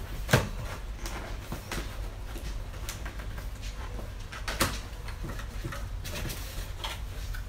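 Cardboard packaging being handled and pulled open: scraping and rustling with sharp snaps, the loudest about half a second in and another about four and a half seconds in.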